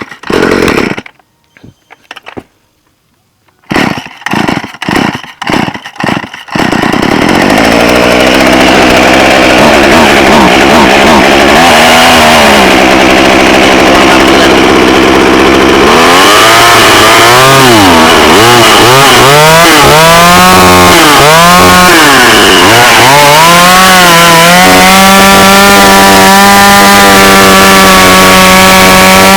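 McCulloch Mac 2.0 mini chainsaw's small two-stroke engine being pull-started on choke, warm from earlier running: a few short starter pulls, then it catches about seven seconds in and runs. From about halfway it is revved up and down over and over, then held at high speed near the end.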